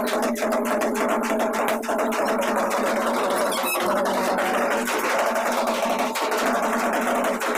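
Band-party music carried by a fast, even drum beat, with steady tones underneath and no bass.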